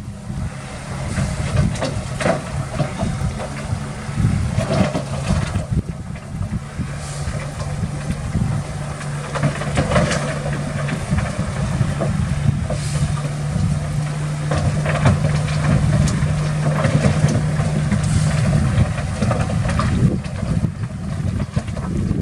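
Diesel engine of heavy earthmoving machinery running with a steady low drone, with scattered knocks and clanks throughout.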